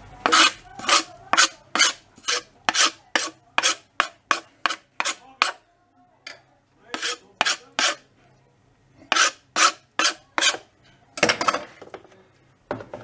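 Quick repeated scraping strokes across a wooden cutting board, about three a second, sweeping chopped parsley off into a bowl; the strokes pause twice briefly, and a longer, louder scrape comes near the end.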